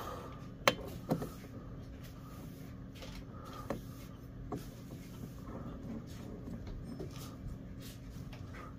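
Small metal clicks and clinks as a chainsaw's centrifugal clutch, with its shoes and spring, is fitted by hand into the clutch drum. The sharpest click comes about a second in, followed by a few lighter taps.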